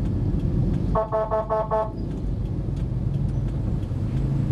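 A vehicle horn sounds a quick run of about five short toots about a second in, over the steady low rumble of engines and traffic.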